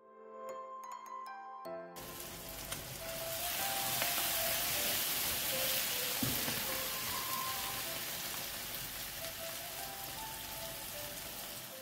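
Chicken sausage fry in a spicy masala sizzling in a frying pan, starting about two seconds in, loudest through the middle and easing a little toward the end. Background music plays throughout, alone for the first two seconds.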